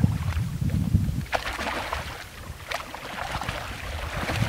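Wind buffeting the microphone in a low, gusty rumble that eases off about a second in and picks up again near the end, with water sloshing and splashing as a person wades through shallow flood water in waders.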